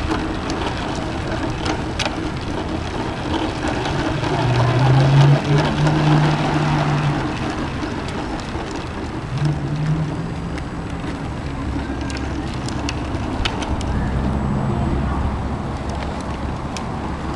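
Hard plastic wheels of a child's ride-on tricycle rolling over asphalt and pavement, a steady rattling rumble like rain on a surface. A low hum comes in twice, from about four to seven seconds in and again around ten seconds.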